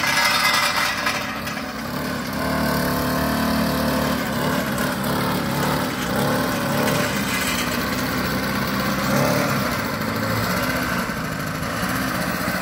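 Small engine of a radio-controlled model truck running, its pitch rising and falling as the truck moves, while it tows another model truck that has run out of fuel.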